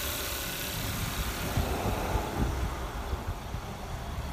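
Kia Soul engine idling on a jump-start pack after its battery went flat, the sound fading as the microphone moves away from the engine bay; uneven wind buffeting on the microphone from about a second and a half in.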